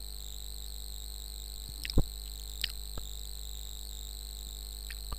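Steady electrical hum and hiss of a microphone and recording setup, with a few brief clicks or knocks. The sharpest comes about two seconds in, and fainter ones follow near three seconds and near the end.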